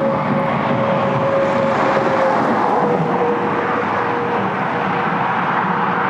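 Steady loud mechanical rushing noise with one held hum that drops slightly in pitch a little over two seconds in.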